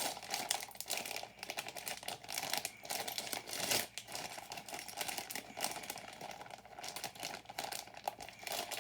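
Plastic bag of building-brick parts crinkling and crackling as it is handled and opened.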